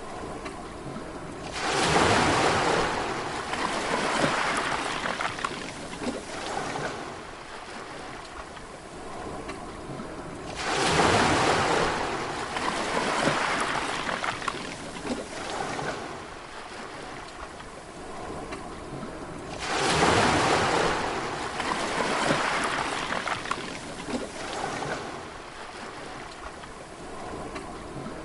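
Sea waves breaking, three in turn about nine seconds apart. Each comes in suddenly as a loud rush and fades away over several seconds, with a softer wash of water between them.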